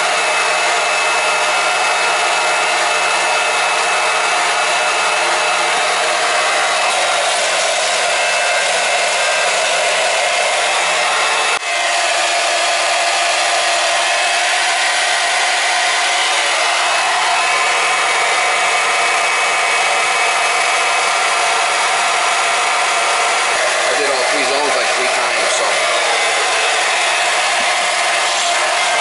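Electric pump running steadily as it circulates the water and glycol antifreeze mix through hoses in a bucket to flush and fill a hydronic heating loop. The noise breaks once, briefly, about twelve seconds in.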